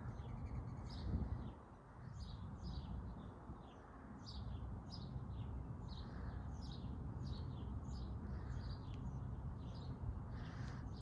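A bird chirping over and over: short falling chirps at about two a second, over a steady low background rumble.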